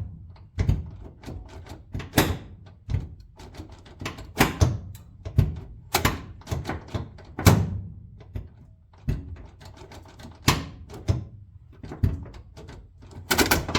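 Console-mounted automatic floor shifter being worked through its gear positions, giving a series of irregular clunks and clicks, one or two a second, as the lever and linkage drop into each gear.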